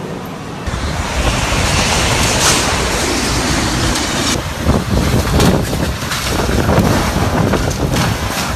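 Strong typhoon wind blowing in gusts and buffeting the microphone; the noise jumps louder just under a second in and turns more uneven and pulsing in the second half.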